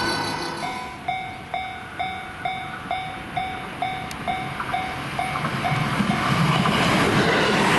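Japanese level-crossing warning bell clanging evenly, about two and a half strikes a second, stopping about six seconds in. At the same time the running noise of a JR West commuter electric train swells as it reaches the crossing and starts to pass.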